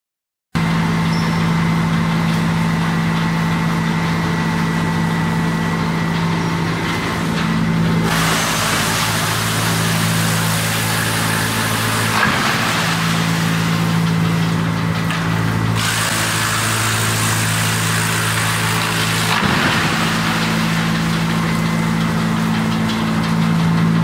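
15 ton/hour drum wood chipper running, its motors and drum giving a steady low hum. In two long stretches a harsher rushing noise joins in, starting and stopping abruptly, as wood fed on the chain-plate conveyor is shredded in the drum.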